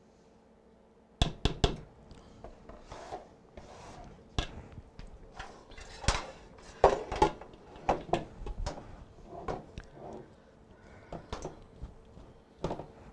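Kitchen utensil clatter: a spatula knocked against the rim of a mixing bowl in a quick burst of three knocks, then a metal baking pan clattered across the stovetop and set down on the counter, with spatula scraping in the bowl between the knocks.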